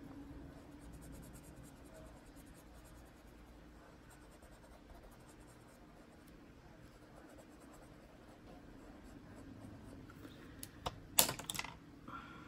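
Colored pencil worked quietly on paper over a faint steady hum, then a short cluster of sharp clicks near the end as Prismacolor pencils are knocked down and picked up on the table while colours are swapped.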